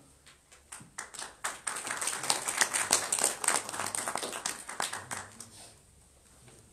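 An audience applauding. A few scattered claps come about a second in and build into full clapping, which dies away near the end.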